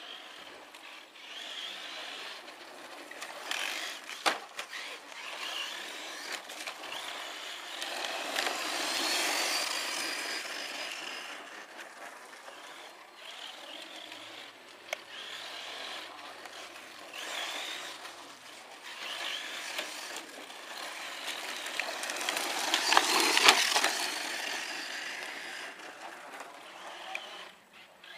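1:10 Himoto short course RC truck driving on gravel: a motor whine that rises and falls with the throttle over the noise of tyres on loose stones. It swells loudest twice, about 9 seconds in and again around 23 seconds, with a couple of sharp knocks in between.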